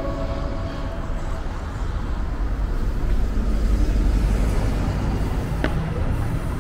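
Road traffic noise with the low rumble of a city bus's engine, as the last notes of a music track fade out in the first second or so. A single sharp click near the end.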